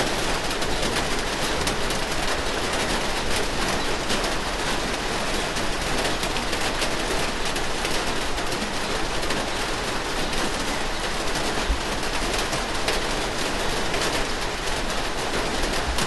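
Steady rain falling, an even hiss dense with the ticks of individual drops.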